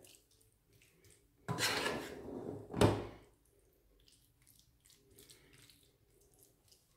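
A silicone spatula scraping against a metal pan, with a sharper knock about three seconds in, then faint soft ticks as the topping is spread.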